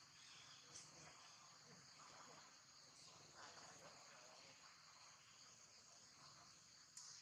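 Faint, steady, high-pitched drone of insects, with a few soft clicks.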